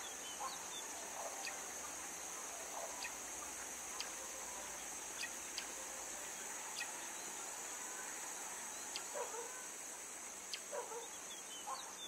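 Countryside ambience: a steady high insect drone with scattered short bird chirps and calls, several of the lower calls bunched near the end.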